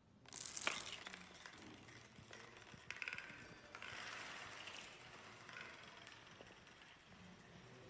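Playing cards toppling one after another in a long domino chain: a fast, continuous clatter of card edges slapping down on each other, loudest about half a second in, with further surges around the third and fourth seconds.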